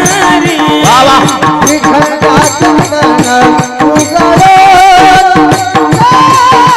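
Marathi kirtan music: a singer holds long, ornamented notes that waver and glide in pitch, over a fast, steady beat of hand drums and percussion.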